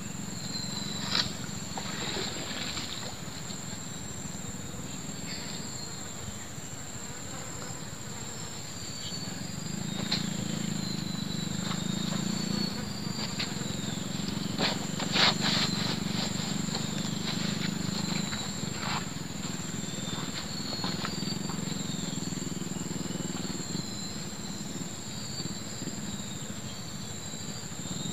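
Outdoor ambience: a steady high-pitched insect drone, scattered short bird chirps and a low drone that grows louder in the middle, with a few sharp clicks, the loudest about a second in and around fifteen seconds in.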